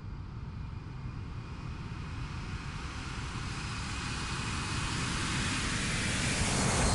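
Jet aircraft passing overhead: a rushing roar with a faint high engine whine, growing louder and peaking near the end.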